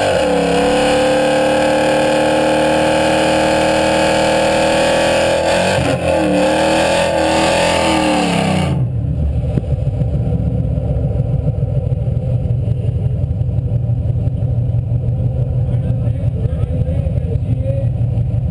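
A drag-racing car's engine held at high revs for a burnout, its tyres spinning, for about nine seconds. It drops off suddenly to a low, pulsing idle rumble.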